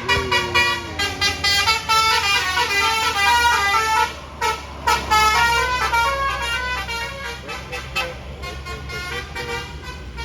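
Bus 'telolet basuri' musical air horn playing a quick tune of short stepped notes over a bus engine's low running. There is a brief break about four and a half seconds in, and the notes grow fainter near the end.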